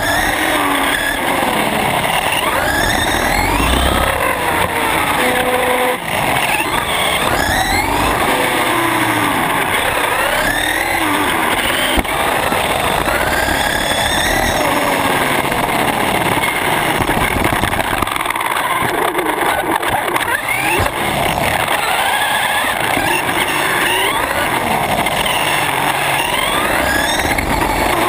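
On-board sound of an electric Traxxas RC car racing: its brushless motor and gear drive whine, the pitch rising and falling again and again as the throttle comes on and off, over steady tyre and road noise, heard from a camera mounted on the chassis.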